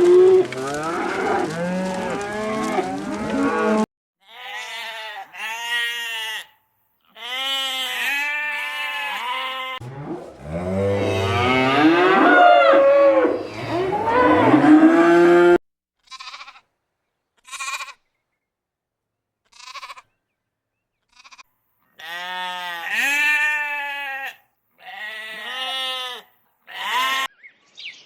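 Sheep bleating: a run of wavering calls, several overlapping at the start, with single bleats later on, broken by sudden silent gaps. A denser, deeper stretch of calling in the middle is the loudest part.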